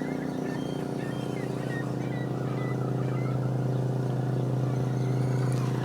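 A steady mechanical hum with several even tones, growing slightly louder toward the end, with faint short chirps above it.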